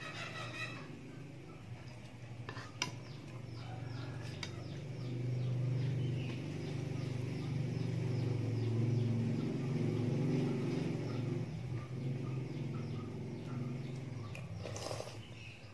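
Eating sounds: a spoon clinks against the bowl a couple of times, and noodles are slurped near the end. Under them a low hum swells up through the middle and fades again.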